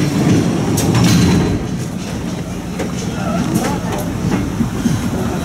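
Classic two-axle electric tram on the move, its steel wheels rumbling steadily on the rails with irregular clicks and knocks from the track, and faint voices under it.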